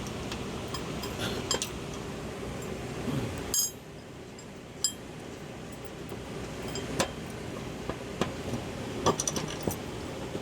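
Steel washers and bolts clinking and tapping as they are handled and set on a mower deck's spindle mounting plate: scattered sharp metal clicks over a steady low background hum that drops a little a few seconds in.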